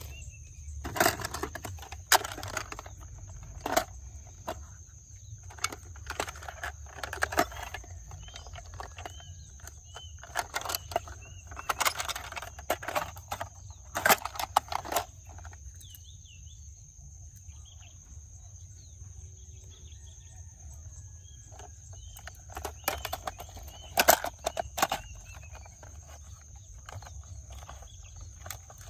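Irregular clicks and knocks, clustered in bunches with quieter stretches between, over a steady low rumble, with a few faint short chirps.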